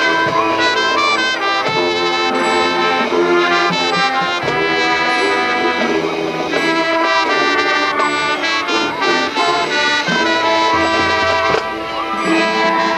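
High school marching band playing, with the brass loudest. The loudness dips briefly near the end.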